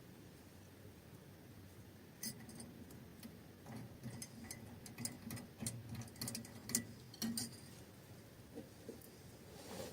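Irregular small clicks and light taps, a dozen or so scattered through the middle seconds over a faint low background.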